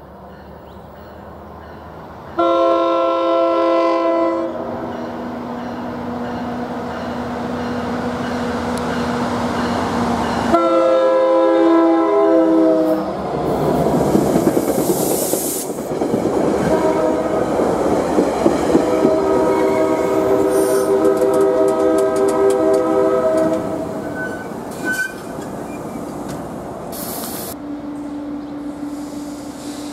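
NJ Transit PL42AC diesel locomotive passing with a train of multilevel coaches, sounding its horn in long blasts: one about two seconds in, another about ten seconds in, and a longer held chord in the middle of the pass. Between the blasts the locomotive's engine drones, and as the coaches roll by the wheels clack over the rail joints.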